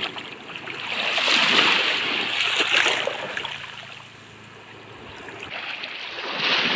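Small sea waves washing and lapping in shallow water at the shore, swelling up twice: about a second in and again near the end.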